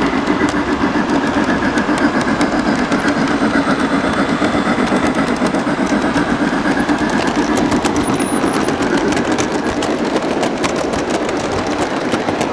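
Steady engine-like running noise with a fast, fluttering clatter and scattered sharp ticks.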